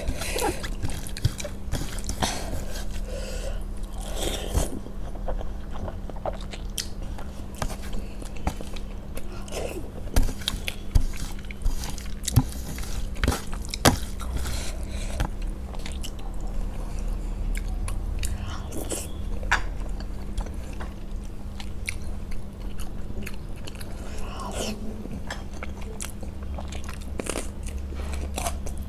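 Close-miked eating sounds: steady chewing and biting, with frequent short crunches and sharp mouth clicks.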